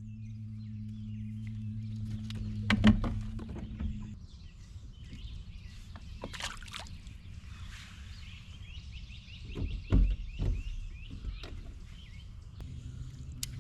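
Sounds from a small fishing boat on a lake. A steady low hum stops about four seconds in, and there are a couple of knocks against the boat, the loudest about three and ten seconds in. Birds chirp throughout, with a quick trill of repeated notes in the middle.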